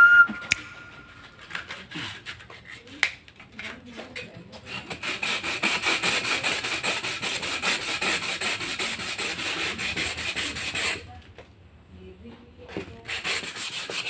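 Cut rim of a glass bottle being rubbed back and forth on sandpaper laid flat on a wooden table: a steady gritty scraping in quick strokes, smoothing the freshly cut edge. A few knocks come first; the scraping stops for about two seconds near the end, then starts again.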